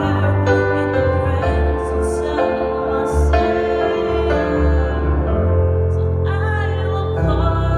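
A woman singing a slow worship song over instrumental accompaniment with long held bass notes.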